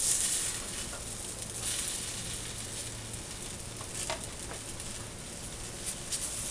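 Guajillo-sauce-dipped tortillas frying in oil on a hot round comal: a steady sizzle that swells loudest right at the start as a tortilla is turned with a spatula, with a few light clicks of utensils later on.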